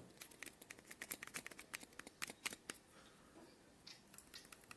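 Loose battery rattling inside a small action camera as it is shaken: a quick, irregular run of light clicks and knocks, thickest in the first couple of seconds. The battery has play in its compartment, and that is the cause of the rattle heard in the camera's recordings.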